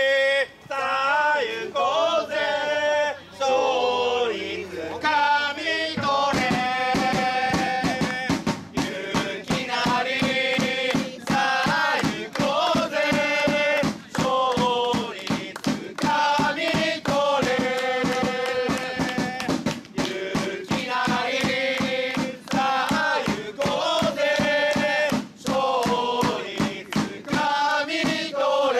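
Football supporters singing a player's chant together in unison, with a drum beating a steady rhythm that comes in about six seconds in.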